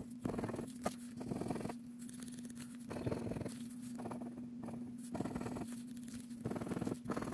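Plastic scratcher scraping the latex coating off a scratch-off lottery ticket in short repeated strokes, about one a second, with a steady low hum underneath.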